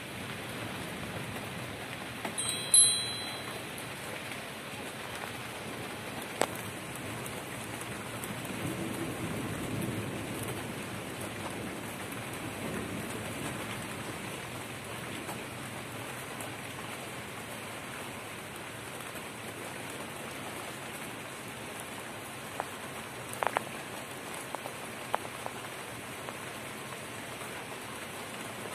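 Steady rain falling, with scattered drips and ticks. About three seconds in, a short, sharp ringing clink stands out, and a faint low rumble swells around ten seconds in.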